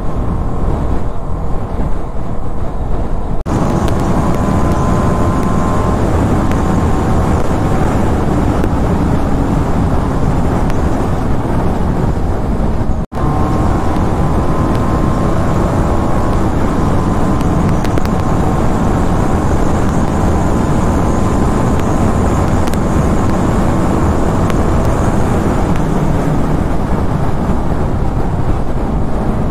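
TVS Apache RR 310's single-cylinder engine running as the motorcycle rides along the highway, with heavy wind noise on the microphone and engine tones slowly rising and falling. The sound changes abruptly about three and a half seconds in, and drops out for an instant about thirteen seconds in.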